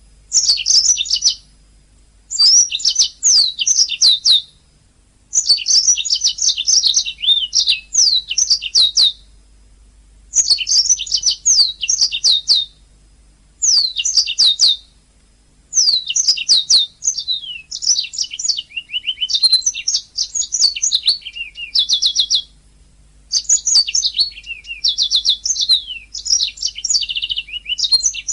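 Domestic canary singing: fast, high trills and rapid runs of repeated notes, in phrases one to several seconds long with brief pauses between them.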